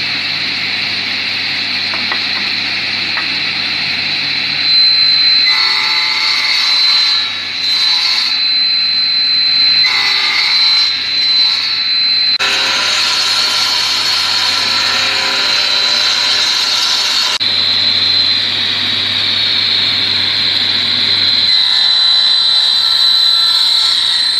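Sliding table saw running with a steady high whine, its blade cutting into a round wooden leg several times to cut the shoulders of a tenon. The longest cut comes mid-way.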